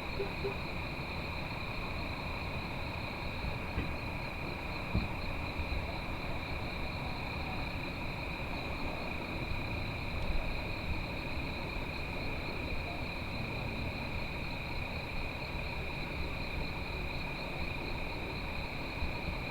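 Steady high-pitched chorus of night insects such as crickets, chirring without a break, over a low rumble.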